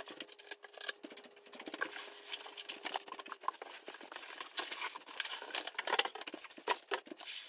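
Cardboard shipping box being lifted off and handled, with rustling of paper-wrapped packing blocks and many short crinkles and clicks, along with light pattering taps on a hardwood floor.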